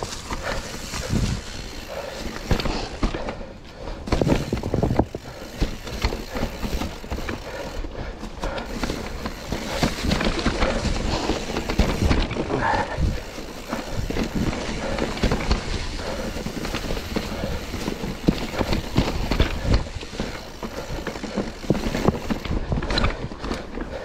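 Mountain bike rolling over rocky singletrack: tyres knocking and crunching over rocks, with the chain and frame rattling in a continuous clatter.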